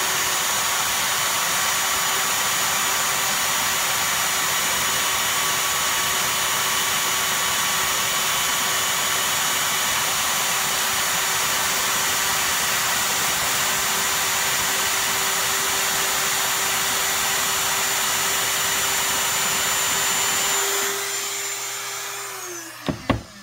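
Dremel rotary tool running at a steady high speed with a polishing tip, a constant whine as it buffs excess solder and gold plating off a circuit board contact pad. Near the end it is switched off and spins down, followed by a couple of clicks.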